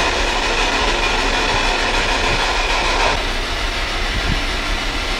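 Steady radio static and hiss from a spirit box sweeping through radio frequencies, over a low electrical hum; the static changes character about three seconds in.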